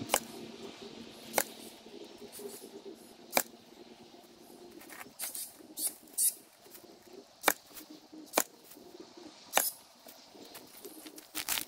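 Ryobi R18ST 18-volt cordless stapler firing crown staples through chicken wire into timber, a sharp snap every second or two, about nine in all.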